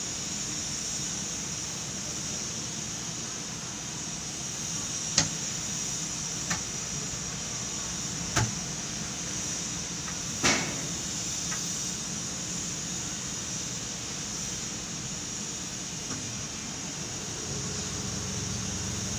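Steady machinery hum with a high hiss inside the operator's cab of a 12-ton jib crane at work loading sand, broken by about four sharp clicks or knocks.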